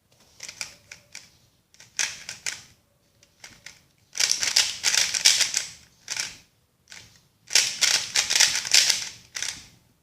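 GAN 356 Air S speedcube being turned, its plastic layers clacking in rapid runs of clicks, with the longest and loudest runs about four seconds in and again near the end.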